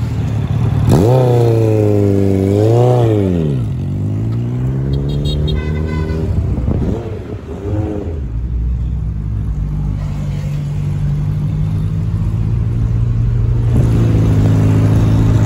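Motorcycle engine revved hard twice, its pitch climbing and falling, then more short throttle blips, giving way to a steady low engine and road drone of a car following behind.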